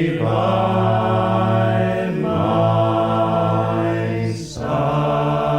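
A group of voices singing a traditional sea shanty unaccompanied, holding long, slow chords in harmony. The chord shifts briefly about two seconds in and again near the end.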